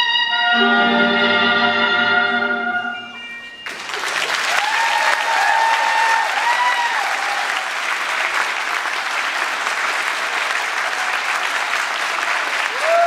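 A swing tune ends on held final notes a few seconds in, and the audience breaks into applause with cheers and whoops.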